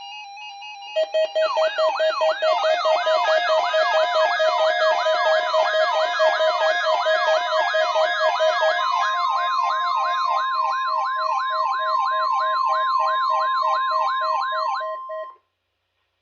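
Weather radio alert for a required weekly test: a siren-like alarm of quick repeated rising whoops, about three a second, over a steady beeping tone. About nine seconds in, the steady 1050 Hz NOAA warning alarm tone joins, and everything cuts off abruptly near the end.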